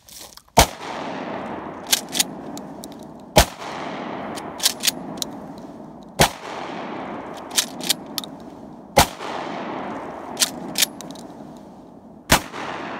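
Pistol-grip 12-gauge pump shotgun firing slugs: five heavy shots, a little under three seconds apart, each followed by an echo that trails off. Between shots comes a quick double clack as the pump is worked back and forward to chamber the next shell.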